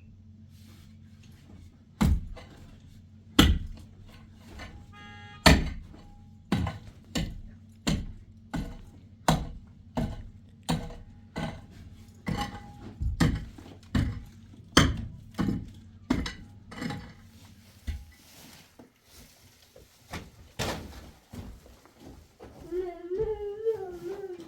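A steady series of heavy blows from a hand tool, about twenty strikes at roughly one every three-quarters of a second, over a low hum that stops near the end of the blows. A voice is heard briefly at the close.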